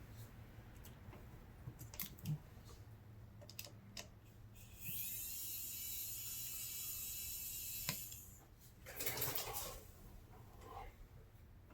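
Cordless electric precision screwdriver running for about three seconds on a phone's small Phillips screws, a steady high whine that rises in pitch as the motor spins up and stops abruptly. Light clicks of small tools and screws being handled come before it, with rustling handling after.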